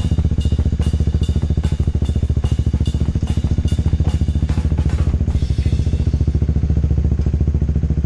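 Motorcycle engine running steadily close to the microphone, its low exhaust note pulsing rapidly. For about the first five seconds a regular clicking beat sits over it, then fades out.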